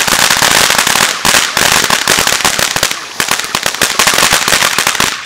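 Consumer ground fountain firework spraying sparks: a loud, continuous hiss packed with rapid crackling pops, dipping briefly about a second in and again about three seconds in.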